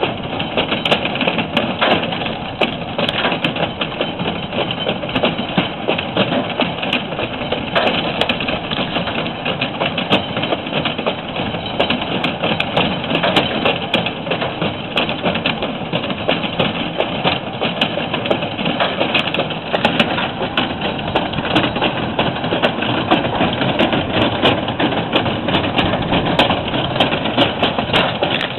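A motor running steadily under load, with a dense crackle of small clicks and snaps throughout.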